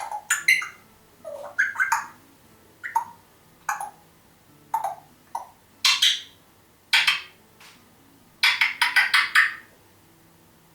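African grey parrot making short clicks, whistles and chirps, some sliding down in pitch, with a quick run of clicks near the end.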